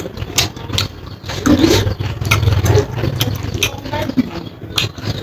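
Close-up eating sounds: chewing with many short wet clicks and smacks of the mouth, over a steady low hum.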